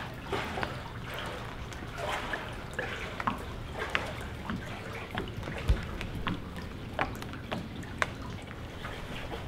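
Floodwater dripping and lapping, with irregular small splashes and drips, and one dull thump a little past halfway.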